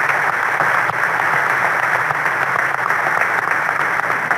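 Large audience applauding, a steady round of clapping that fills the hall.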